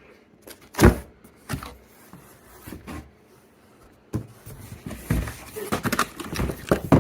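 Cardboard vacuum-cleaner box being handled and opened: a sharp thump about a second in, a few lighter knocks, then a busy stretch of cardboard knocking and rustling from about four seconds in.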